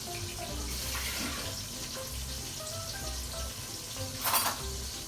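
Steady sizzling of eggplant slices shallow-frying in a pan, with a short clatter about four seconds in.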